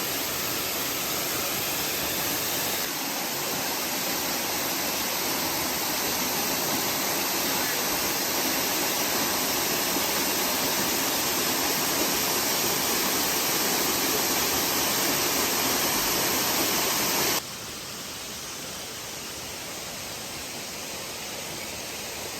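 Waterfall rushing steadily, an even hiss of falling water. It drops suddenly in level about three-quarters of the way through.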